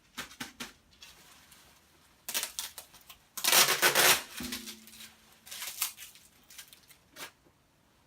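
Packing material rustling, crunching and tearing in bursts as a steel tongue drum is unwrapped, with one of the drum's tongues giving a brief low ring about four seconds in.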